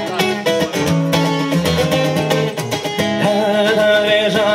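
Acoustic guitar strummed in a steady rhythm, an instrumental passage between sung lines of a song.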